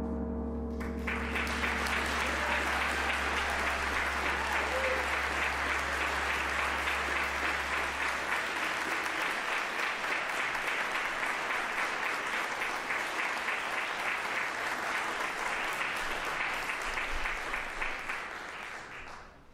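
The percussion ensemble's last chord rings out and fades in the first second, then an audience applauds, starting about a second in and stopping abruptly near the end.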